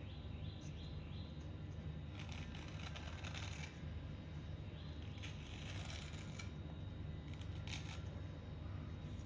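Soft, scratchy scraping of a clear plastic scraper drawn along a soaked white clay stick, shaving off wet crumbly layers in short runs of strokes, over a steady low hum.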